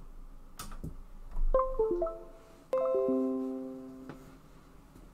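A few light clicks as the webcam's USB cable is plugged in, then Windows system chimes for the new device: a quick run of short electronic notes about a second and a half in, followed by a ringing chord that fades away over about a second and a half.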